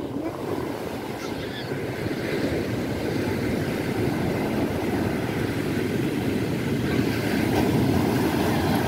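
Sea surf: waves breaking and washing up a sandy beach in a steady rush that swells a little louder about three-quarters of the way in.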